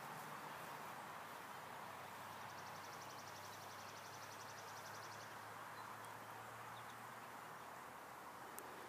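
Quiet outdoor ambience: a steady low hiss, with a fast, high-pitched trill for about three seconds in the middle.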